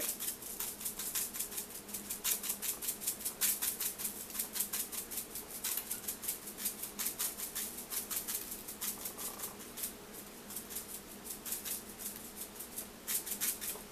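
A spice shaker being shaken over pork chops on a baking sheet: quick rattling shakes, several a second, in runs that ease off after about nine seconds and pick up again near the end. A faint steady hum lies underneath.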